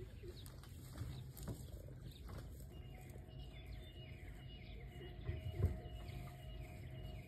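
Birds calling: a rapid series of short, high, falling chirps, over a faint steady low hum, with one dull low thump about five and a half seconds in.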